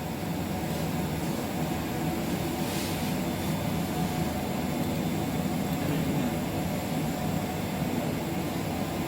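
Steady mechanical hum with a constant airy noise, like running ventilation or machinery, unchanging throughout.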